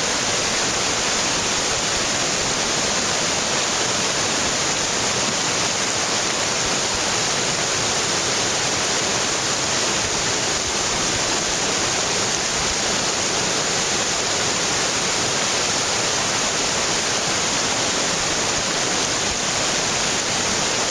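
Mountain torrent rushing and churning over rocks: a loud, steady whitewater rush.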